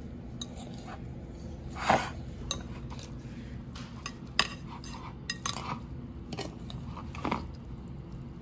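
Metal fork tossing a shredded beef and lettuce salad in a glass bowl: irregular clinks and scrapes of the fork against the glass, about nine, with the soft rustle of the greens.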